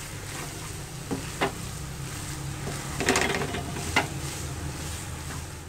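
Wooden spatula stirring and tossing saucy noodles in a non-stick frying pan over soft sizzling. Sharper scrapes against the pan come about a second in, in a cluster around three seconds, and once more at four seconds.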